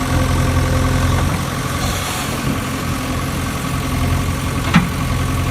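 An engine idling steadily, with one sharp click near the end.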